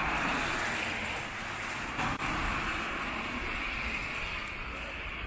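Road traffic on a wet street: a car passing close by, its tyres hissing on the wet tarmac.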